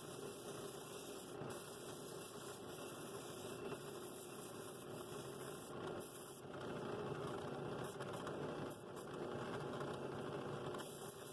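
Drill press spinning a 2-inch flexible pad sander, its sandpaper rasping against the outside of a hand-held wooden bowl over a steady motor hum. The sanding noise swells and eases as the bowl is pressed and turned against the pad.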